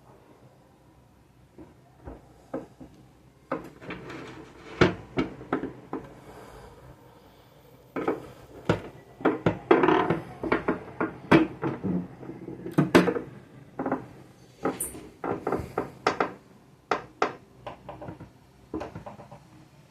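Irregular clicks, taps and knocks of hard parts being handled on a jammed Elgin sewing machine, sparse at first and coming thick and fast in the middle.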